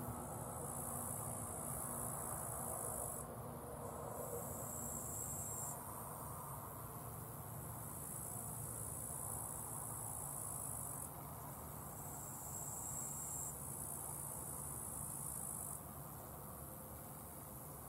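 Crickets chirring: a steady high-pitched buzz, with a second, slightly lower song switching on and off every few seconds. A faint low rumble runs underneath.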